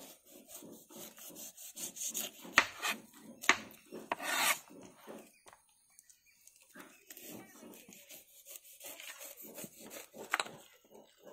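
Rapid repeated scraping strokes, about four a second, with a few sharp knocks and one longer rasp about four seconds in; the strokes pause briefly past the middle.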